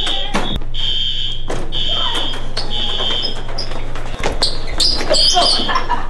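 School fire alarm sounding: a high-pitched electronic tone pulsing about once a second, set off by a manually pulled alarm. Scattered knocks and shouting voices sound over it, the shouts strongest near the end.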